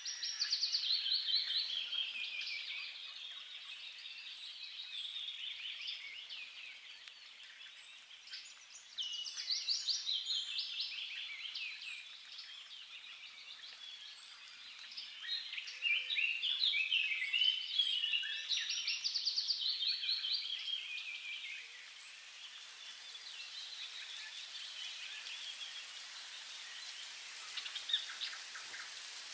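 A small songbird singing: several trilled phrases of a few seconds each, falling in pitch, repeated every several seconds over a faint steady outdoor hiss.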